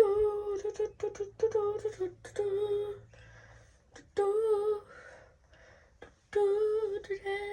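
A girl humming a tune in several short phrases with pauses between them.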